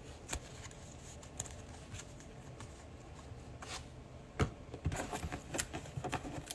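Trading cards being handled: a few scattered light clicks and taps, a sharper one about four seconds in, then a quick run of small taps near the end.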